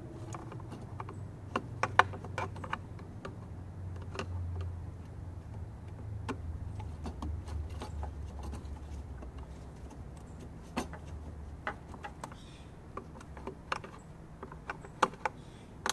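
Irregular small clicks and ticks of a flathead screwdriver prying at the plastic clip prongs of a crankcase vent hose connector, over a low steady hum that fades in the second half.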